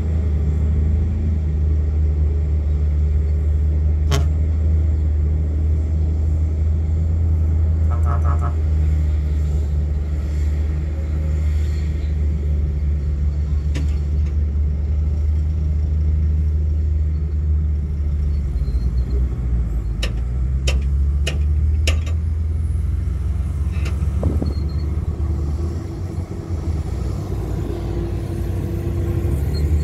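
Heavy diesel earthmoving machinery at work, bulldozer engines with a deep steady rumble. Occasional sharp metallic clanks cut through it, several in quick succession about twenty seconds in, and the rumble eases briefly near the end.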